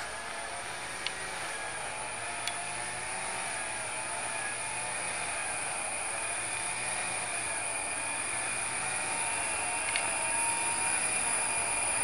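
Distant jet engines of a twin-engine widebody airliner rolling out on the runway after landing: a steady whine with a slowly wavering tone, growing gradually louder. A few faint clicks sound during it.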